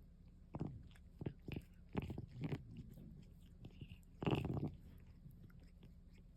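A cat grooming itself close to the microphone: irregular short wet licks and nibbles at its fur.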